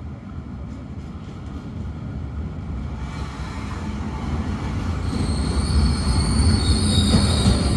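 Train running on the rails, its low rumble growing steadily louder, with a high wheel squeal setting in about five seconds in.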